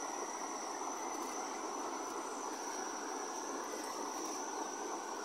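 Steady rush of a small, shallow river flowing over stones, with one thin, high-pitched insect drone held steady above it.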